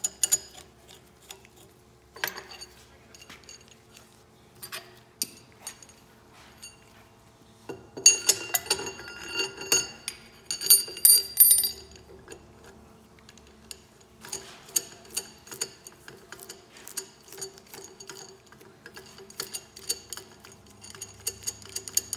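Steel nuts and washers being spun down by hand on threaded tie-rod studs to clamp a charge kit onto a hydraulic hammer accumulator. There are a few scattered metallic clicks, then several runs of rapid light ticking and clinking, the densest about halfway through.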